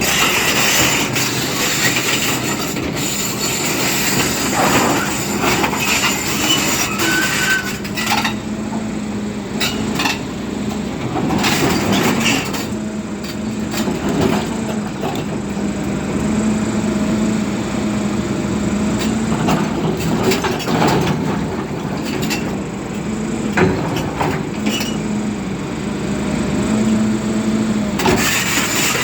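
Volvo hydraulic excavator working: its diesel engine and hydraulics run under load with a steady drone that swells and fades. Short metallic squeaks and scattered knocks and scrapes come through on top.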